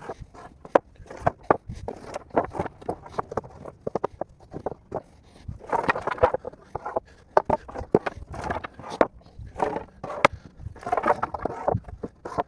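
Footsteps crunching and scuffing on the ground, uneven, with two denser stretches of crunching about halfway through and near the end.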